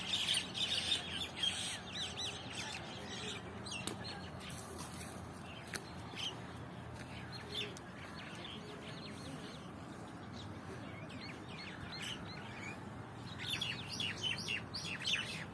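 Small birds chirping in quick runs of short, gliding notes, busiest at the start and again near the end, over a steady low hum of road traffic.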